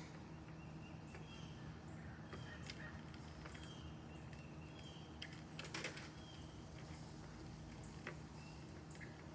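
Faint short bird chirps, several scattered through, over a low steady hum, with one sharp knock a little past halfway.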